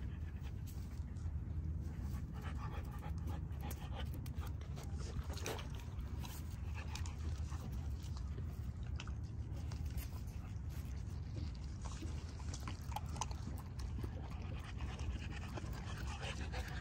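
American bully puppy panting, with scattered light clicks and crunches as it noses at dry kibble on concrete. A steady low rumble runs underneath.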